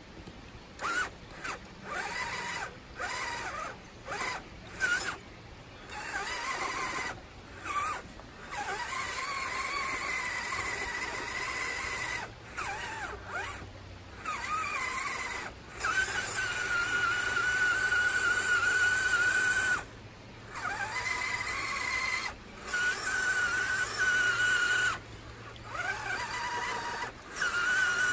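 RC4WD Trail Finder 2 scale truck's electric motor and gearbox whining under throttle, pitch rising and falling: short stabs for the first several seconds, then longer steady pulls with pauses between.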